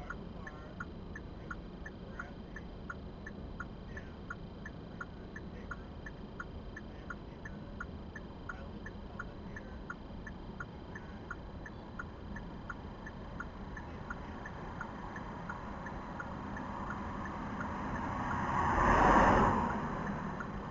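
Car turn-signal indicator clicking steadily, about two clicks a second, over the cabin's road and engine hum. Near the end a passing vehicle swells loud and fades.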